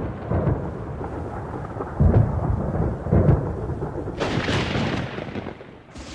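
Thunder rumbling in several low rolls, then a louder hissing rush about four seconds in and a short burst near the end.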